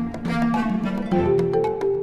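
Instrumental background music with plucked and held string-like notes over a light ticking beat.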